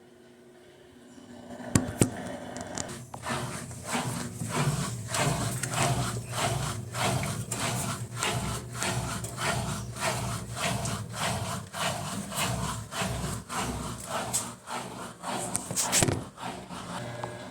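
Electrolux LTC10 top-load washing machine running: a steady motor hum under a rhythmic rubbing scrape about twice a second, with two sharp knocks about two seconds in.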